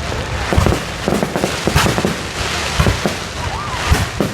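Fireworks going off in quick, irregular succession: deep booms mixed with sharp cracks, over a continuous crackle.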